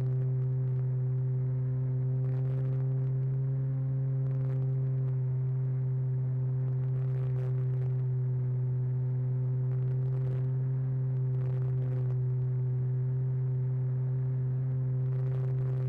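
Radio-controlled model airplane in flight, heard from a camera mounted on it: the motor and propeller hum steadily at one even pitch, with a few faint brief hisses over the top.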